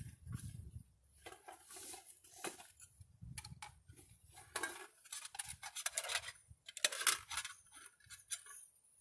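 Metal camping cookware clinking and clattering as a small frying pan is handled, mixed with rustling of a plastic bag being rummaged through. An irregular string of light clinks and rustles, with the loudest clatters about seven seconds in.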